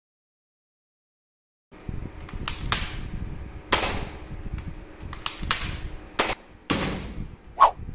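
Plastic toy AK-47 gel-ball gun being handled and worked: about eight sharp plastic clicks and snaps at uneven intervals, beginning after nearly two seconds of silence.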